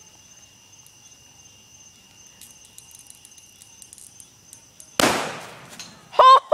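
A fire explosion: one sudden loud blast about five seconds in, dying away over about a second, followed near the end by a person's loud excited voice. Before the blast, only a faint steady high tone.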